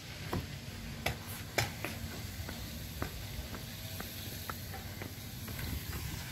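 Footsteps on hard paving, short sharp steps about two a second, over a steady low rumble and hiss of open air.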